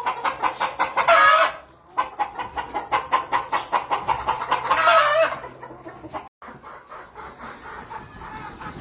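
Gamefowl chickens clucking in quick runs of about six clucks a second. Each run ends in a drawn-out squawk, once about a second in and again around five seconds in. Quieter clucking follows near the end.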